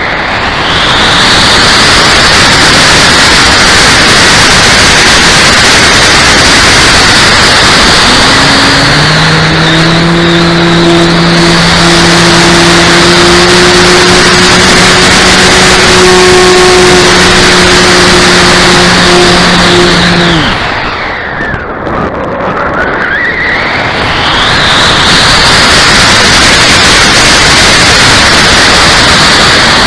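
Electric RC P-51D Mustang model's 1160kv brushless motor and propeller, heard from on board, running hard with heavy wind rush as it flies fast and low. About two-thirds of the way through, the throttle comes back: the whine drops away and the sound quietens, then the whine climbs back up as power is reapplied.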